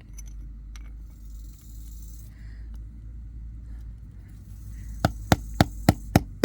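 Six sharp strikes in quick succession near the end, a tool hitting into a screwdriver's handle to chip off another chunk, over a low steady hum.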